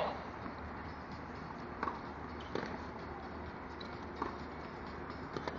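Tennis-court ambience between points: a steady low hum with a few faint, irregularly spaced knocks.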